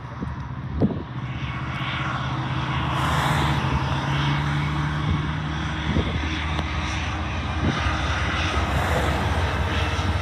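Two diesel-electric freight locomotives running past with a steady low engine drone, growing louder over the first few seconds as they come closer.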